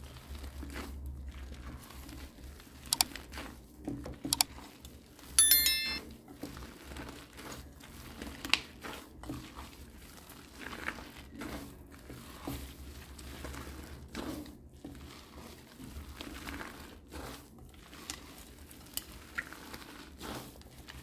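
Hands squeezing and kneading foamy slime mixed with shaving foam and gel balls: irregular wet crackling and popping clicks, with a brief high squeak about five seconds in.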